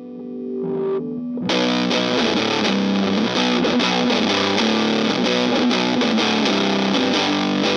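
Gibson ES-335 electric guitar on its neck pickup, played through an Acorn Circuit Fuzz pedal with the fuzz turned all the way up and the level at noon, into an amp. A held chord swells in, then about a second and a half in, busy, heavily fuzzed riffing starts and carries on at a steady loud level.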